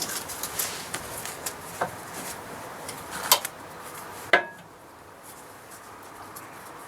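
Light metal clinks and taps of a rear brake caliper and its bolts being handled and lined up by hand, with two sharper clinks a little after three and four seconds in.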